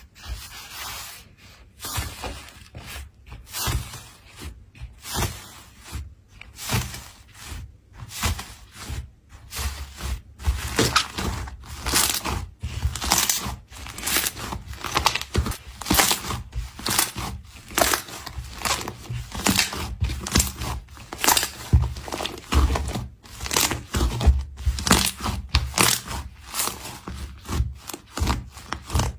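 Slime being squeezed and pressed by hand: a run of short, noisy squishes, about one a second at first, then coming faster and louder from about ten seconds in.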